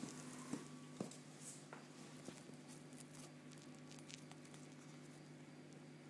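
Faint, steady low hum from aquarium equipment, with a few soft clicks in the first couple of seconds.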